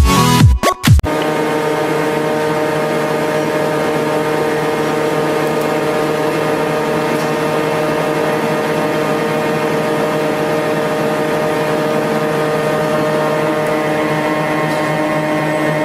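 Music with a beat cuts off about a second in. After it, a thread rolling machine runs with a steady mechanical hum made of several steady tones over a light hiss, while its grooved dies roll a thread onto a steel rod.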